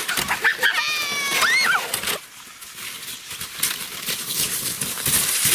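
A child's high-pitched squeal about a second in, gliding up and down in pitch. After it comes the scraping hiss of plastic saucer sleds sliding over snow.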